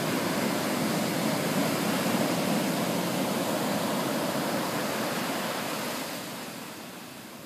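Ocean surf breaking and washing up the beach, a steady rush that fades toward the end.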